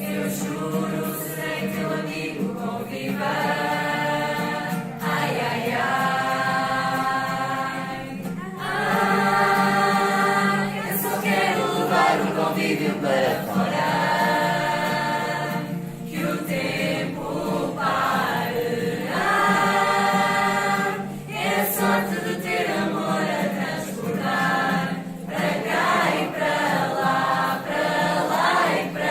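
A group of voices singing a religious song together, in phrases of a few seconds with short breaks between them, over a steady low hum.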